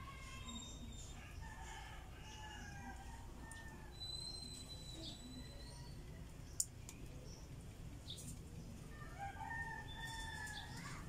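Roosters crowing: one crow in the first few seconds and another near the end, over a steady low rumble, with a single sharp click about six and a half seconds in.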